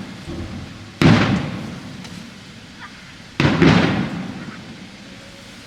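Fireworks shells bursting: two booms about two and a half seconds apart, each fading out over about a second.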